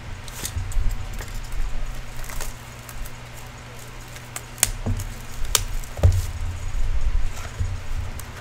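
A cardboard box of Upper Deck Ice hockey cards handled and opened by hand on a tabletop: light taps and scrapes, with a few sharp clicks and low thumps around the middle, over a low steady hum.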